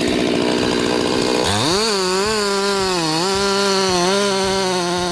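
Two-stroke chainsaw running at high revs, rough while it cuts. About a second and a half in, its note turns clear, climbs and holds steady with brief small dips in revs.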